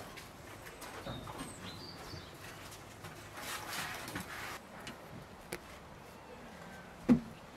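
Quiet outdoor ambience with a few faint, high bird chirps early on, a stretch of soft rustling noise around the middle, and a single sharp knock near the end.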